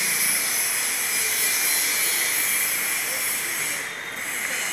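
A steady, loud hiss that eases off a little near the end.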